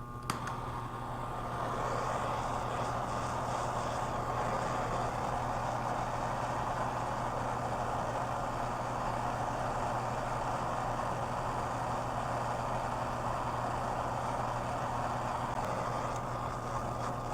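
Gas torch flame hissing steadily while heating a copper pipe joint to melt the solder, coming on with a click just after the start.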